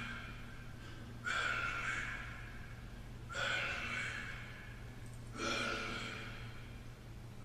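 Quiet, breathy swells, four of them about two seconds apart, each starting suddenly and fading away, over a low steady hum.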